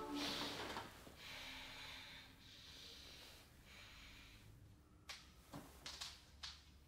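Faint, slow breathing of a person lying restless in bed, as music fades out at the start. About five seconds in, a few soft taps and knocks.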